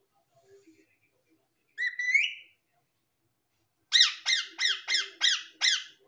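Indian ringneck parakeet calling: one rising call, then about two seconds later a run of six harsh squawks, about three a second, each dropping in pitch.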